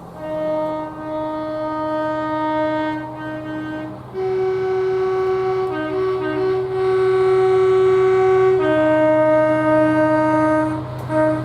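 Train horn sounding a series of long blasts, switching between a lower and a higher note, over a steady low engine drone. The lower note sounds twice, a higher note is held for about four seconds from about four seconds in, and the lower note returns near the end.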